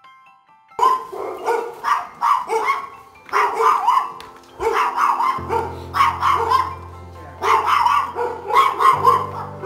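A dog barking repeatedly in short bursts, over background music whose low held notes come in about halfway through.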